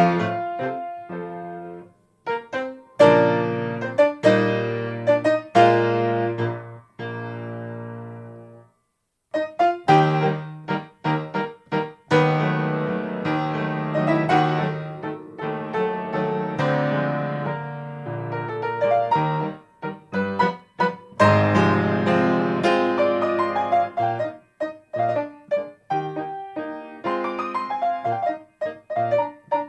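TOYO A-25 grand piano playing a waltz solo, with short silent breaks about two seconds in and again about nine seconds in.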